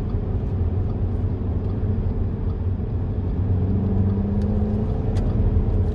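Audi A5 quattro heard from inside its cabin while driving at road speed: a steady low rumble of engine and tyre noise.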